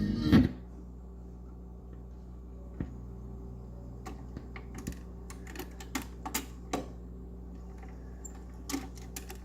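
Vintage Columbia 45 rpm record player: the record's music cuts off about half a second in, leaving a steady low hum from the set, with a scattering of irregular mechanical clicks and taps from the player's mechanism.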